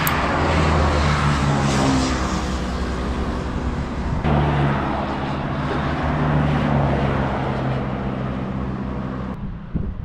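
Honda CT125's single-cylinder four-stroke engine running steadily while riding, with wind and road noise; the engine note shifts about four seconds in.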